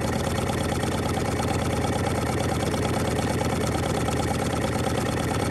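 Carette hot-air engine running steadily with a fast, even mechanical beat, driving a tinplate toy carousel round by a string belt.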